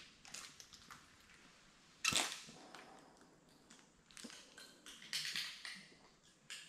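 Irregular crunching and clicking, like something brittle breaking or shifting underfoot, with the loudest crunch about two seconds in and another cluster near five seconds, in a small room.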